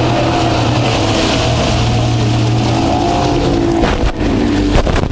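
Twin Yamaha 75 hp outboard motors of an inshore lifeboat running under way, a steady engine note whose pitch shifts about three seconds in, over wind buffeting the microphone and water noise. A few short knocks near the end.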